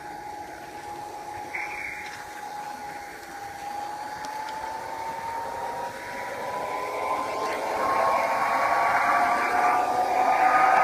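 Garden-railway model train running on its track: a steady electric motor whine that rises slowly in pitch as the train picks up speed, over the rattle of wheels on the rails, growing louder toward the end.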